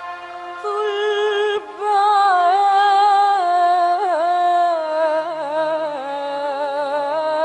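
Arabic song: a short instrumental phrase, then from about two seconds in a woman's voice holds one long, ornamented, wordless melodic line.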